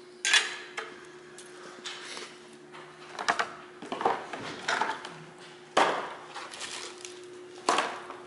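Parts and plastic blister packaging being handled and set down on a table saw's top: a string of sharp clacks and rustles, the loudest about a third of a second in, near six seconds and near the end. A faint steady hum runs underneath.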